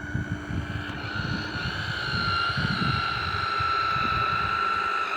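Small electric motor of a radio-controlled fishing boat running with a steady high whine, its pitch sagging slightly over a few seconds, with wind buffeting the microphone.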